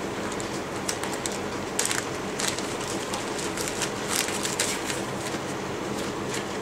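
Clear plastic bag crinkling and rustling in irregular sharp bursts as it is handled and opened to get a booklet out, over a steady background hum.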